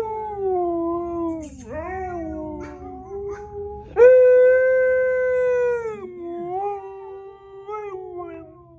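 Husky howling: a run of long, drawn-out howls that slide up and down in pitch, with the loudest starting about four seconds in and held for about two seconds.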